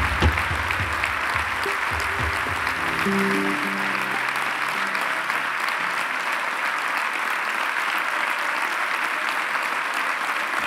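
Audience applauding steadily over music. The music's low notes stop about four seconds in, leaving mostly the clapping.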